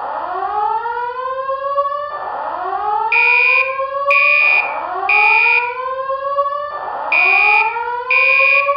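Simulated voice-evacuation fire alarm sounding a slow whoop, a tone that sweeps upward in pitch and repeats every two to three seconds. About three seconds in, a higher steady beep joins it in the code-3 temporal pattern: three half-second beeps a second apart, a pause, then three more.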